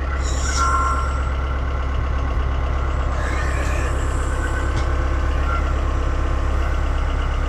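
Mahindra 2638 compact tractor's diesel engine running steadily, with a brief high-pitched tone about half a second in.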